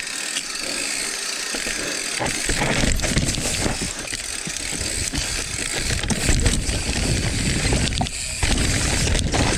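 Mountain bike riding a dirt trail: tyres on loose dirt with the bike clattering over bumps, and wind buffeting the microphone, which gets heavier about two seconds in.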